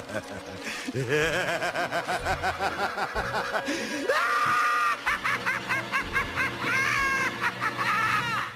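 Loud laughter: a series of fast, rhythmic 'ha-ha-ha' runs, broken by short pauses.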